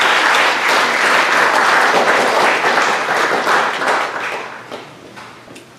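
Audience applauding, with the clapping dying away about four to five seconds in.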